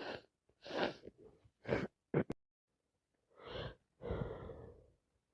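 A woman's short, catching gasps and sniffs through a runny, congested nose, about six quiet breaths in a row: the hitching inhalations that build up to a sneeze.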